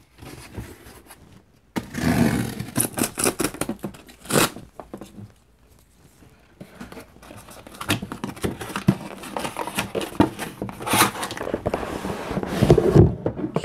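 Cardboard shipping box being unpacked by hand: corrugated cardboard scraping, tearing and rustling as the packing insert and an inner product box are pulled out. It comes in two spells, with a short quiet pause in the middle.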